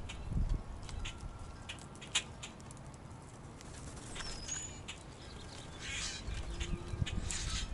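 Backyard birds: scattered short clicks and light patters, with a couple of brief high chirps about four seconds in and a few soft low thumps.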